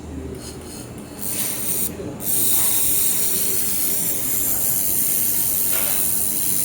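Handheld air-cooled laser welder with wire feed firing: a steady high hiss from the welding gun starts about a second in, breaks off briefly, then runs on evenly.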